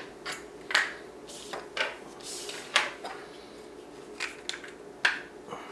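Small hard-plastic parts of a piping-bag quick coupler clicking and knocking as they are handled, with scattered light clicks and a brief rustle a little over two seconds in.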